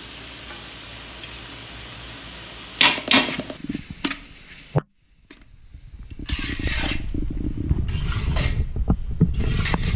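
Sliced onions sizzling with a steady hiss in a large aluminium pot, then a spoon scraping the pot as green masala paste is stirred into them. After a brief silent break about halfway, louder irregular scraping and rustling as the onions and masala are mixed in the pot.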